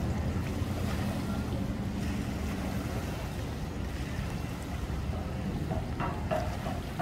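Steady low rumble of idling engines from a pontoon boat and a tow vehicle, mixed with wind on the microphone. Brief voices come in about six seconds in.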